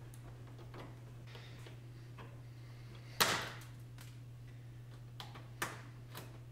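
Plastic push-type retainer clips being pressed into the top of a Honda Civic grille. There are a few faint clicks and one louder snap about three seconds in as a clip's center pin is pushed down to lock it. A steady low hum runs underneath.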